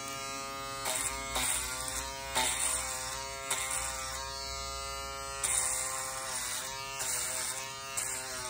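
Andis electric foil shaver running with a steady buzz while being drawn over short stubble on a scalp, the cutting noise swelling briefly with each pass, about every second or two.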